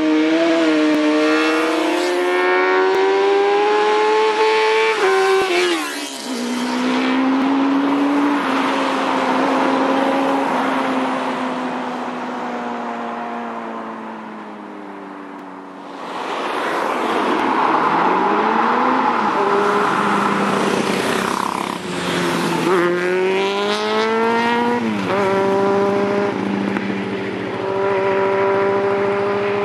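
Several motorcycles riding past one after another, engines revving up through the gears. Each rising run of pitch breaks off with a sudden drop at a gear change, and a long falling stretch midway marks a bike easing off.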